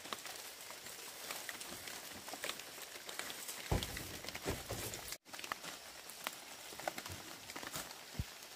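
Dry palm-leaf thatch rustling and crackling with many small snaps as it is handled and pulled about, with a few dull thumps just before the middle and a split-second gap just past it.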